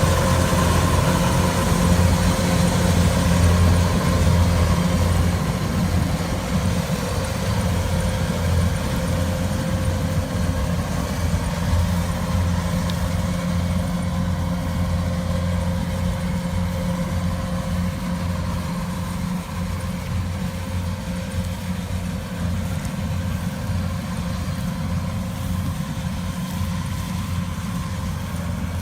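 Rice harvesting machine's engine running steadily at idle, slowly growing a little quieter.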